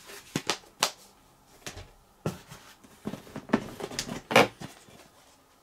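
Plastic DVD cases being handled: a string of sharp clicks and knocks, about eight over a few seconds, with light rustling between.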